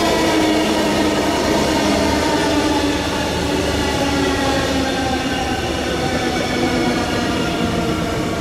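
An SBB ICN tilting electric express train running past at close range: wheels rolling on the rails with a steady whine of several tones over it.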